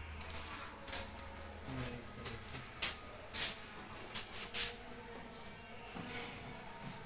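Handling noise as people work at a cardboard box: a string of short rustles and light knocks at uneven intervals.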